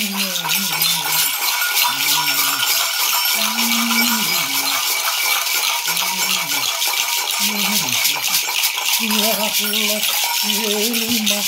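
Gourd rattles, one wrapped in a bead net, and clusters of metal bells shaken without pause in a dense jingling rattle. Under it a low male voice chants in long held notes, some sliding downward, with short breaks between them.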